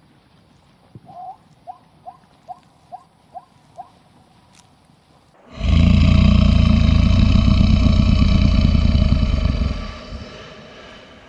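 A zebra calling: a run of seven short, rising yelps, about two and a half a second. Then, about five and a half seconds in, a crocodile's loud, deep bellow, held for about four seconds before it fades.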